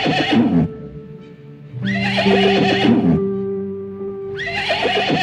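Horse whinnying three times, each call falling in pitch, the first ending about half a second in and the last starting near the end, over background music with long held notes.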